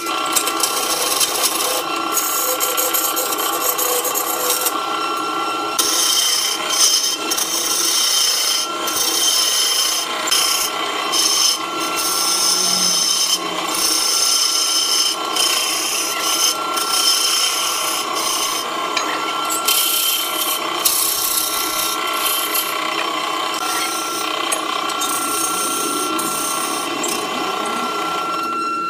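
Wood lathe turning a block of wood while a hand-held chisel cuts into it: a continuous hissing scrape that swells and drops as the tool bites, over a steady whine.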